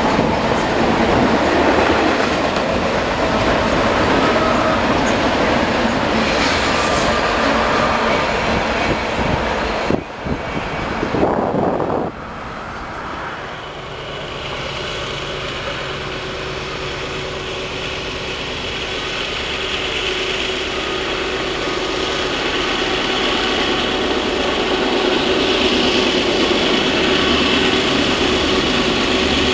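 A double-stack container freight train rolls past, its steel wheels clattering on the rails. About ten seconds in the sound changes to the diesel locomotives of a distant freight train chugging uphill, working hard at full power and growing steadily louder.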